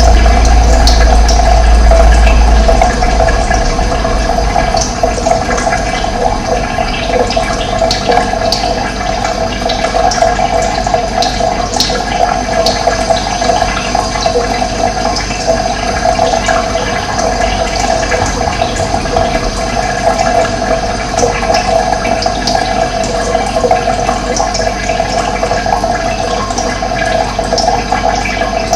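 Running water flowing steadily, with a strong low rumble that drops away about three seconds in and brief high sounds scattered over it.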